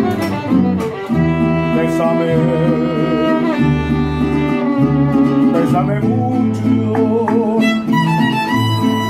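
A Mexican band playing: a violin melody of held notes with vibrato over guitar accompaniment, with deep bass notes changing every second or so underneath.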